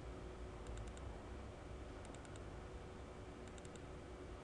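Faint computer-mouse clicks: three quick groups of double-clicks opening folders in a file dialog, about a second and a half apart, over a low steady hum.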